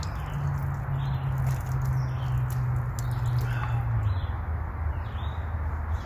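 Water poured from a hydration bladder splashing over hands and dripping onto gravel, stopping partway through. A steady low hum runs underneath and drops in pitch about four seconds in.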